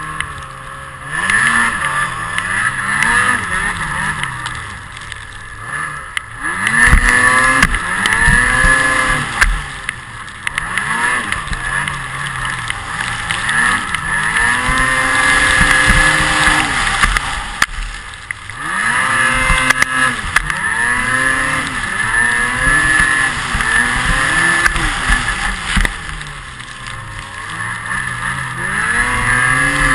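Snowmobile engine running hard, its pitch climbing and dropping again and again as the throttle is opened and eased off.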